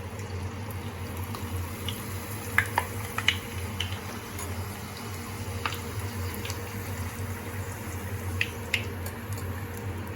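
Puris frying in hot oil: a steady sizzle with sharp pops and crackles scattered through it, the loudest a few seconds in.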